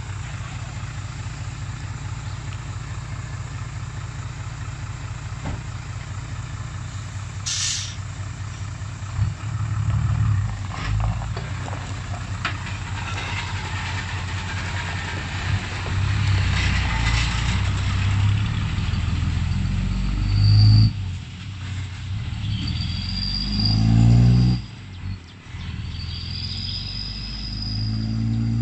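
Diesel engine of a Hino Ranger six-wheel dump truck idling steadily, then revving and pulling away, its pitch climbing and dropping through several gear changes. A bird calls a few times near the end.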